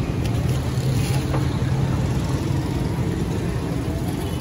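Steady low rumble of street traffic, with a few faint clicks about a second in.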